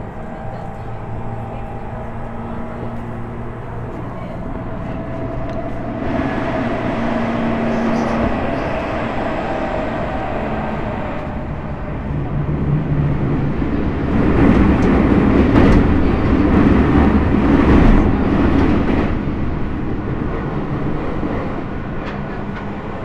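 Running sound of a Tokyu 5050 series 4000-subseries train heard from inside the car: a continuous rumble of wheels on rail with steady motor tones. It grows louder about six seconds in, is loudest for a few seconds from about fourteen seconds, then eases off.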